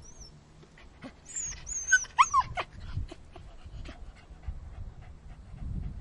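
Puppy crying: a quick run of high-pitched whimpers and squeals that slide up and down, between about one and three seconds in, over a low rumbling background noise.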